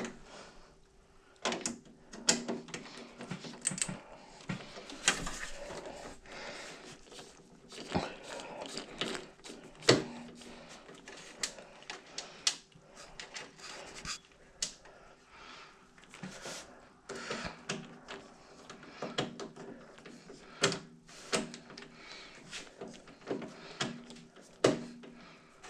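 Hands working on a desktop computer's hard drive and case parts: irregular clicks, taps and light knocks of metal and plastic as the drive and its screws are handled.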